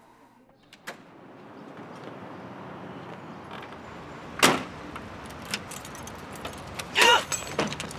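Keys and the door handle of a car being worked: a sharp click about a second in, then a loud clack near the middle and another loud clatter about seven seconds in, over a steady background hiss.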